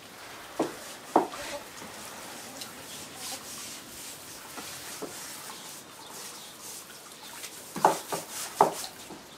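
Garden hose spraying water around the inside of a wooden chicken coop, a steady hiss. A few sharp knocks come twice about a second in and twice near the end.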